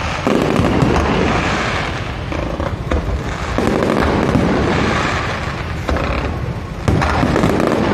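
Fireworks display going off: a steady mass of crackling bursts, with a fresh volley breaking out roughly every three seconds.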